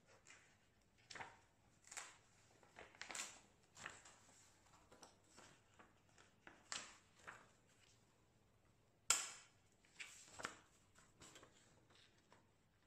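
Soft rustles and slides of paper inserts being handled and fitted onto the metal rings of a six-ring planner binder, with a sharp click a little past the middle.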